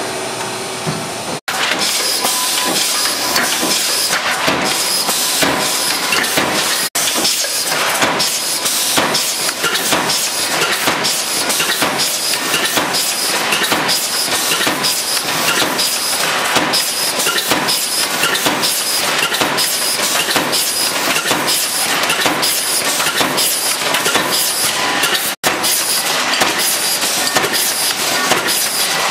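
Automatic can-making press running, its strokes coming as a rapid, even clatter of metal impacts, a few each second.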